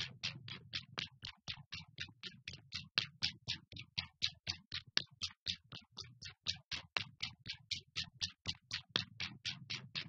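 Electronic soundtrack: a fast, even pulse of short hissy clicks, about six a second, over a low hum that fades out around the middle and returns near the end.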